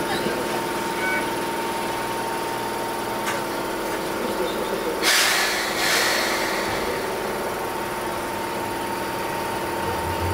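Enoshima Electric Railway 500-series electric train heard from the cab. Electrical equipment hums steadily in two held tones. About halfway through come two short, loud air hisses a second apart, as the train starts to pull away from the station.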